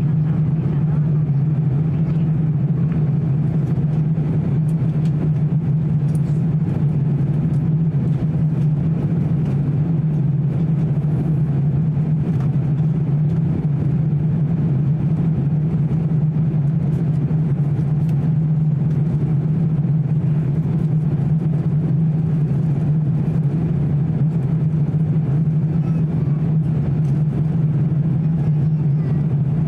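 Airbus A350-900 cabin noise in flight: a steady, unbroken low hum from the Rolls-Royce Trent XWB engines, mixed with the rush of air over the fuselage.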